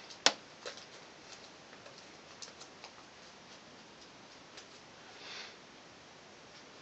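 Origami paper being folded and creased by hand: small scattered crinkles and ticks, with one sharp click about a quarter second in and a soft short rustle about five seconds in.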